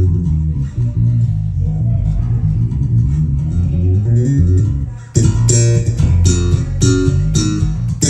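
Lakland Skyline 55-02 five-string electric bass played through speakers: a line of held low notes moving in pitch, then from about five seconds in a run of sharp, percussive notes in an even rhythm.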